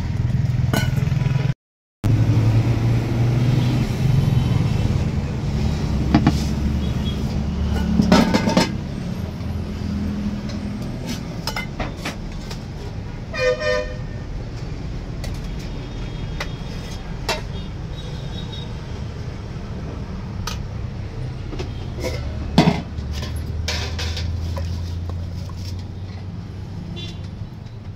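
Steady roadside traffic rumble with a short car-horn toot about halfway through, over scattered clinks of steel ladles against steel serving containers. The sound cuts out completely for a moment about two seconds in.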